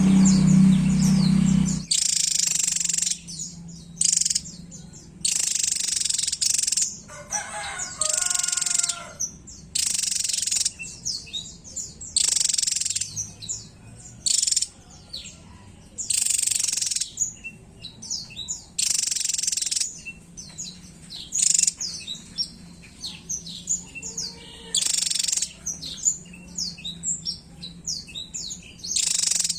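Javan tesia singing vigorously: loud bursts of rapid, high-pitched song about a second long, every few seconds, with many short sharp chirps in between. A low hum underlies the first two seconds.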